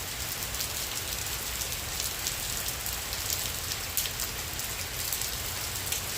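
Tropical-storm rain falling steadily in a dense downpour, with scattered sharp ticks of drops striking a nearby surface, one louder tick about four seconds in.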